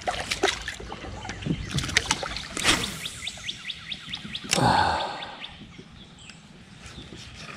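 Cast with a spinning rod and reel: a swish about two and a half seconds in, then a quick run of even ticks for about a second and a half as line pays off the reel. Birds call faintly.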